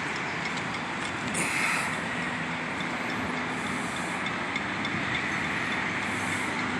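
Steady outdoor traffic noise from city vehicles, with a faint low hum and three short high-pitched hisses spread through it.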